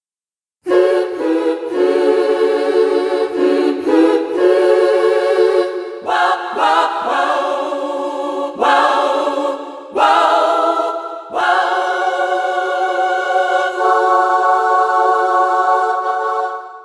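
Yamaha PSR-E373 keyboard playing its choir voice: a string of sustained sung-sounding chords that change every second or so, ending on one long held chord that fades out near the end.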